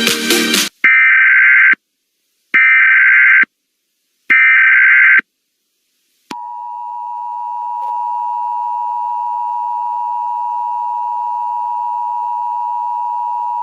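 Emergency Alert System tones: three one-second bursts of the SAME header's screechy data tones about a second apart, then, about six seconds in, the steady two-tone EAS attention signal (853 and 960 Hz) that holds on.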